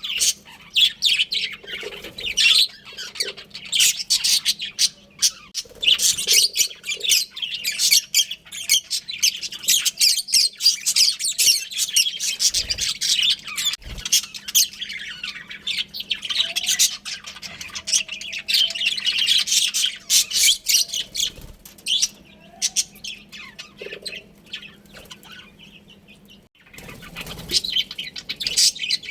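A flock of budgerigars chirping and chattering in quick, overlapping calls, with a quieter spell late on before the chatter picks up again. A faint steady low hum runs underneath.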